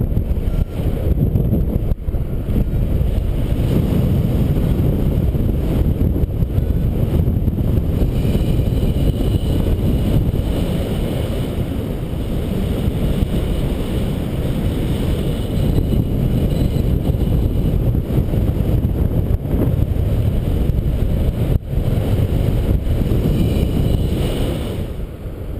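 Wind from a paraglider's flight buffeting the camera microphone: a steady low rumble of rushing air.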